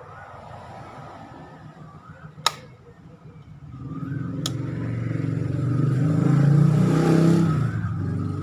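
Two sharp clicks, then a motor vehicle's engine passing close by, swelling to its loudest near the end and starting to fade.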